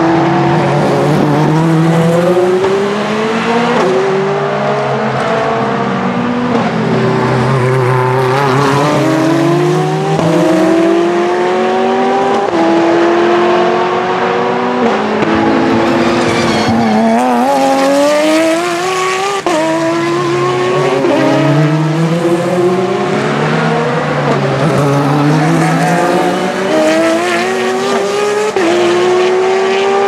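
Endurance racing cars, GTE cars and Le Mans prototypes, accelerating out of a corner one after another. Their engines rise in pitch and drop back at each upshift, several cars heard at once throughout.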